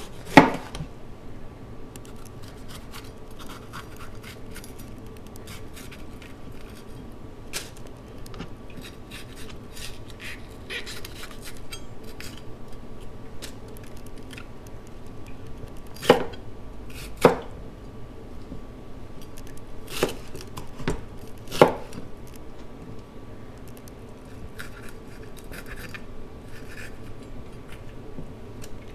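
Kitchen knife cutting a red bell pepper on a cutting board: light slicing and scraping with scattered knocks of the blade on the board, several of them sharp and loud.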